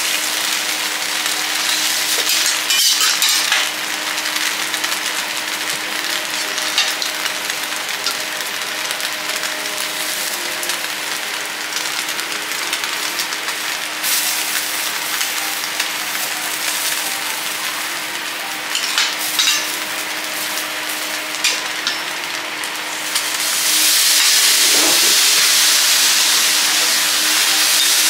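Vegetables sizzling on a steel teppanyaki griddle, with scattered clicks of the spatula and fork against the plate over a steady low hum. About 23 seconds in, the sizzle turns suddenly louder and hissier as steam rises off the griddle.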